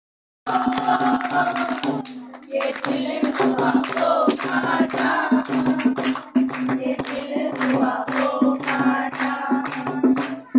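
Dholak hand drum beaten in a steady rhythm while several women sing a folk song together; the sound starts after half a second of silence.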